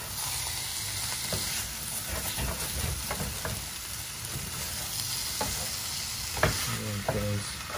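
Curry-seasoned chicken wings with onions and garlic sizzling in a stainless steel sauté pan. They are stirred and tossed with a wooden spatula, which scrapes and knocks against the pan now and then.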